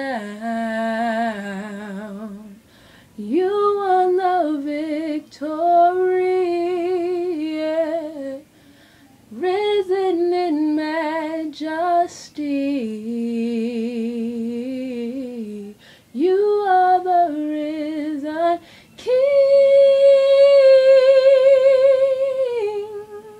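A woman singing gospel unaccompanied, in several sung phrases with strong vibrato and short breaths between them, ending on a long held note near the end.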